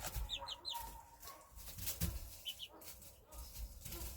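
Young chickens cheeping: short high rising chirps, a quick run of three about half a second in and two more about two and a half seconds in.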